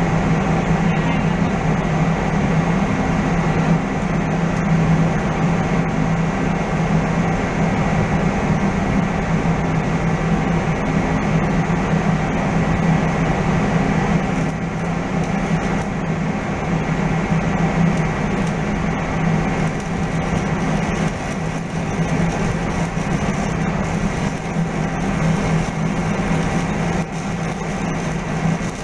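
Steady machinery drone with a strong low hum and a thin high tone over it, unchanging throughout.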